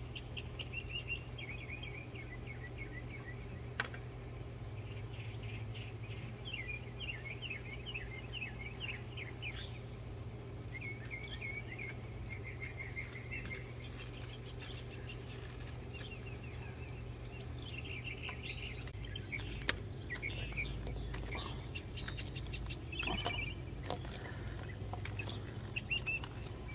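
Songbirds chirping in repeated quick trills, with a few sharp clicks and rustles as plastic hose fittings are handled and pushed onto a pond pump over a steady low hum.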